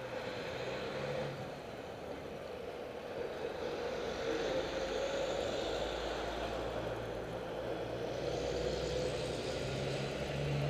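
City street traffic: cars and trucks driving past, with a deeper low engine rumble building in the second half as a heavy truck goes by.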